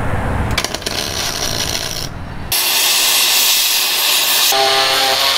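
Cutting torch hissing loudly and steadily as it cuts steel plate. It comes in abruptly about halfway through, after a rougher, lower rubbing noise.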